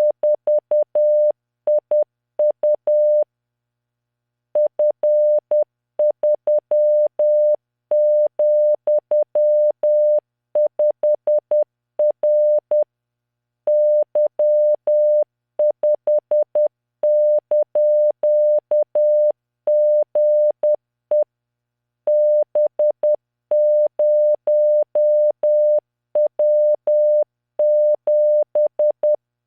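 Computer-generated Morse code: a single 600 Hz tone keyed into dots and dashes at 10 words per minute, sending random five-character groups of letters, figures and punctuation, with short pauses between groups.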